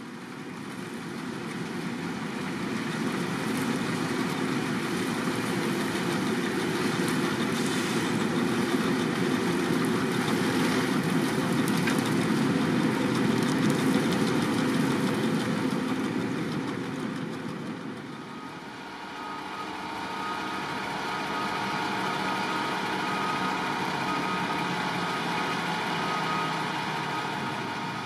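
Grimme Ventor 4150 self-propelled potato harvester running as it harvests, its engine and machinery growing louder as it comes close, then fading away. About two-thirds of the way through, a Fendt 1050 Vario tractor pulling a trailer takes over, its engine running with a steady high whine over it.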